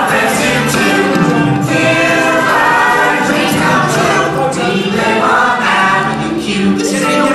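A group of voices singing together in chorus.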